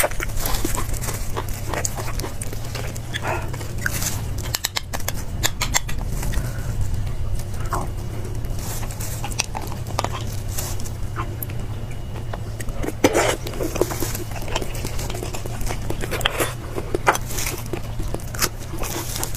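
Close-up eating sounds of beef bone marrow being sucked and slurped out of roasted bones, with many short wet mouth smacks and clicks, over a steady low hum.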